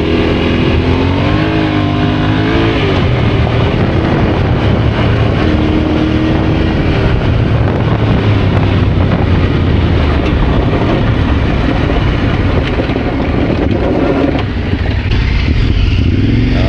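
Yamaha Ténéré adventure motorcycle engine running under way, its pitch rising and falling in the first few seconds and then holding steady, over a constant rush of wind and road noise.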